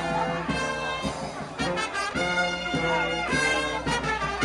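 Live brass band of trumpets and trombones playing a tune in held notes with a steady beat.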